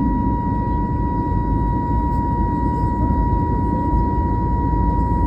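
Airbus A320neo jet engines running at high power during takeoff, heard as a steady, loud rumble with a constant high whine over it.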